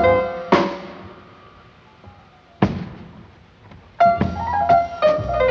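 Jazz band recording: a descending piano run ends, then two sharp accented hits about two seconds apart ring out into near quiet, like a stop-time break. About four seconds in, piano, bass and drums come back in together.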